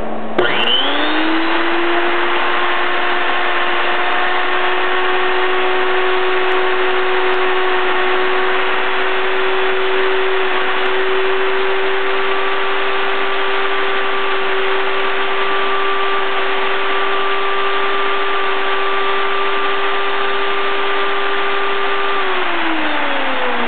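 Blender motor switched on from its touch panel: it spins up quickly to a steady high whine, runs at constant speed, then winds down with falling pitch near the end as it is switched off.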